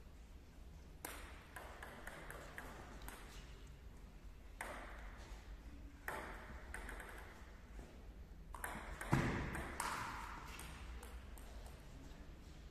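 Table tennis rally: a ping-pong ball clicking back and forth off the paddles and the table in a string of sharp hits, with one louder thump about nine seconds in.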